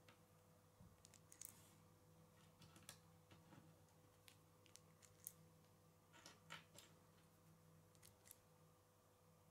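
Faint, scattered clicks of small plastic K'nex pieces being handled and pressed together, a blue rod being fitted into a black connector, over a low steady hum.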